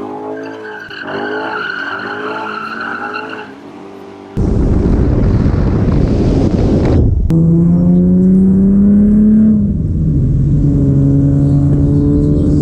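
Cat-deleted Ford Shelby GT500's V8 exhaust under way, very loud. A few seconds in, a sudden loud rush of noise lasts about three seconds and cuts off abruptly. Then a steady engine drone holds its pitch, rising slightly before dropping back as the revs fall.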